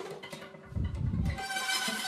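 Recorded rock-band music in a sparse passage: deep low notes, then about one and a half seconds in, a layer of sustained, held tones comes in.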